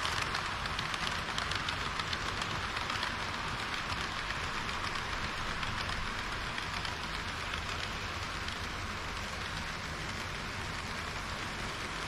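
HO-scale model trains rolling past on sectional track: a dense, steady clatter of small wheels over the rails and rail joints, from a red KiHa 40 railcar set and a long string of green tank cars.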